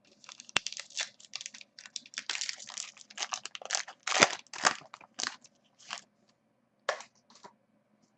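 Crinkling and crunching of a foil trading-card pack wrapper being torn open and handled, with sharp clicks among the rustling. The noise is dense for about six seconds, then comes in two short bursts near the end.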